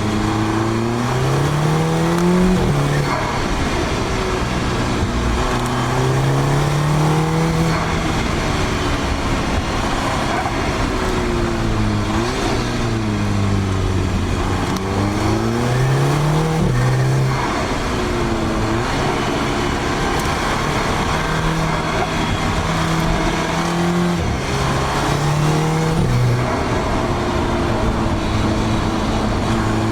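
Audi S3 8P's turbocharged 2.0 TFSI four-cylinder with an aftermarket downpipe, accelerating through the gears: the engine note climbs, then drops sharply at each upshift a few times, and falls away and rises again once near the middle.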